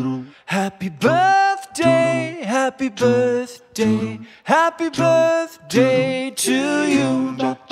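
Background song: a singing voice on long, bending notes in short phrases with brief breaks between them.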